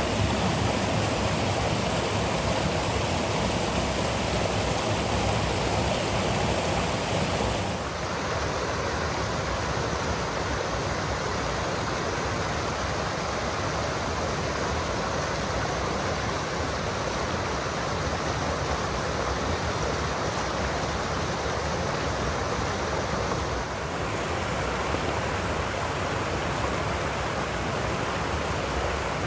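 Creek water pouring over a low rock ledge and rushing in white-water riffles, a steady rush. It drops to a softer rush about eight seconds in and gets louder again near the end.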